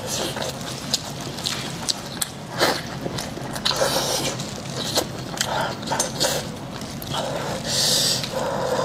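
Gloved hands tearing meat from a sauce-soaked braised sheep's head and wrapping it in lettuce: plastic gloves crinkling, wet sauce squelching and lettuce leaves rustling, with many short sharp clicks and crackles and a louder patch of rustling near the end.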